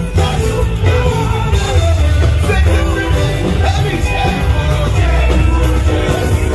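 Live Afrobeats music with a heavy bass line and singing.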